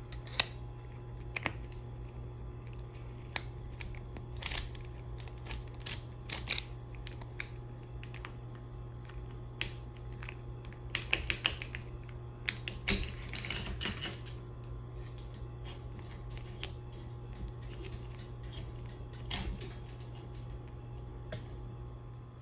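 Scattered light clicks and clinks of small parts and tools being handled, with a quick cluster of clicks a little past the middle, over a steady low hum.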